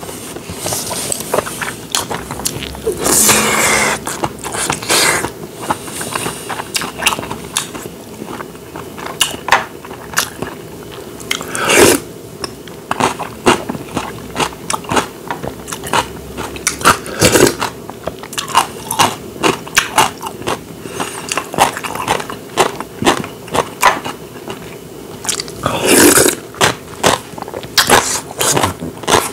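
Close-miked chewing and smacking of a man eating rice mixed with spicy stir-fried webfoot octopus: a dense run of short wet clicks, with a few louder bursts scattered through.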